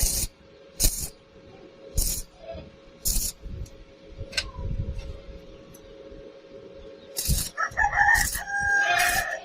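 Sharp knocks at about one a second, then a rooster crowing for nearly two seconds near the end, over a faint steady hum.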